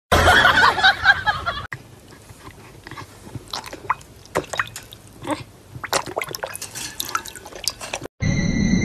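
Water splashing and dripping in a plastic bowl as a dog dunks its muzzle after a floating toy: scattered small splashes and drips at an irregular pace. It opens with about a second and a half of a louder, busier sound that cuts off suddenly.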